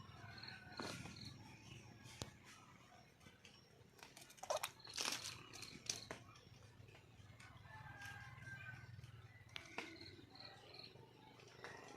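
Faint calls of a wild junglefowl hen, with a couple of short, sharper calls about four and a half and five seconds in, over a quiet background with scattered faint chirps.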